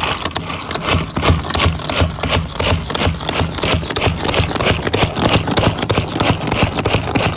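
Hand-pressed plunger food chopper pumped quickly, a fast even rhythm of plastic clacks, about four a second, as the spinning blades chop onion in the plastic bowl.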